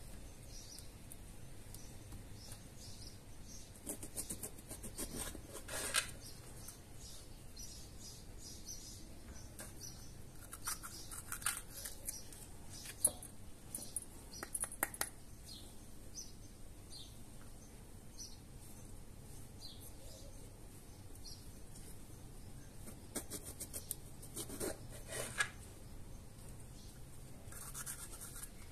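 Crisp crackling and snapping of raw bell peppers being prepared: the stem and seed core torn out by hand and the flesh cut with a knife on a plastic cutting board. It comes in several short bursts of clicks.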